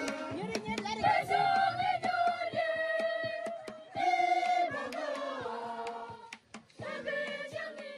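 A group of young women singing together in unison, with long held notes, swelling about a second in and again about four seconds in, over a steady pattern of short sharp beats.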